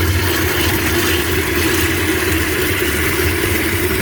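Cold water rushing out of a just-opened shutoff valve under a bathroom sink, flushing sediment out of the supply line: a loud, steady rush with a low hum underneath.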